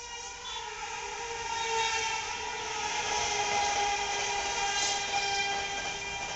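Electric locomotive of an express train sounding a long, sustained multi-tone horn as it passes at speed, its pitch dropping slightly about two and a half seconds in, over the steady rush of the coaches going by.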